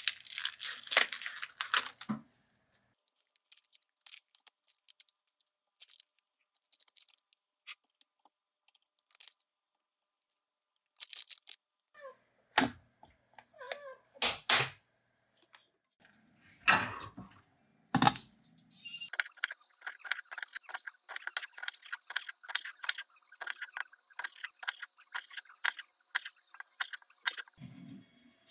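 Plastic kimchi pouch crinkling as it is snipped open with kitchen scissors, then scattered clicks and knocks as the kimchi goes into a glass storage container and its plastic lid is pressed shut. For the last third, a kitchen knife chops green onions on a cutting board in quick, even strokes, about four a second.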